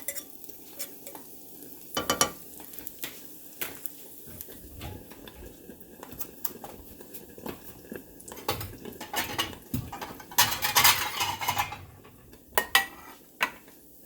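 Kitchen utensils clinking and scraping against pots and pans, with food sizzling in a pan. Scattered sharp clicks throughout, and a louder stretch of clatter and noise about ten seconds in.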